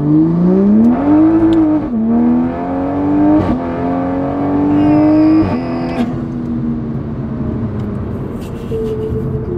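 Toyota A90 Supra's turbocharged B58 inline-six, running an upgraded Pure800 turbo, pulling hard at full throttle. The engine note climbs steadily, drops once at an upshift about two seconds in, climbs again, then falls away as the throttle closes about six seconds in.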